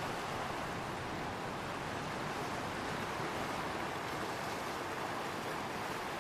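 Ocean waves: a steady, even rush of surf with no single crash standing out.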